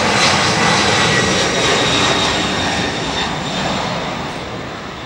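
Boeing 767-300ER's twin jet engines at takeoff thrust as the airliner lifts off and climbs away: a loud roar with a steady high whine, fading over the last couple of seconds.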